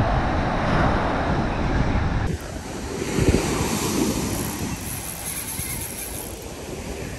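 Ocean surf breaking and washing up the beach, with wind buffeting the microphone; the heavy wind rumble cuts off abruptly about two seconds in, leaving the wash of the waves, which swells once soon after.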